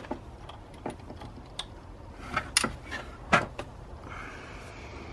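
Scattered light metallic clicks and knocks of new bolts being fitted by hand into a crankshaft pulley.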